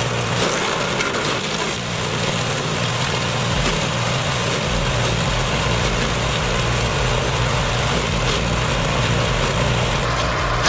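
Engine-driven machine running steadily, with a broad mechanical noise; a deeper engine hum comes in about five seconds in.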